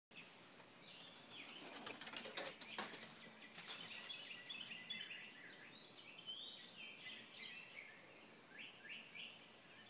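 Faint outdoor ambience: many short bird chirps scattered throughout, over a steady high-pitched whine. A few soft clicks or rustles come about two to four seconds in.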